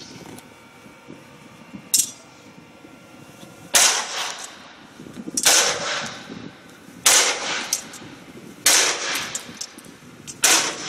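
A baton striking an arm-mounted tactical shield: a light tap about two seconds in, then five hard blows roughly a second and a half apart, each a sharp crack that rings off briefly.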